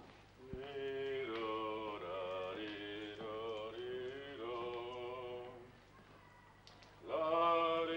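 A voice singing a slow, wavering melody with no accompaniment, in one long phrase, then breaking off about six seconds in and starting again a second later.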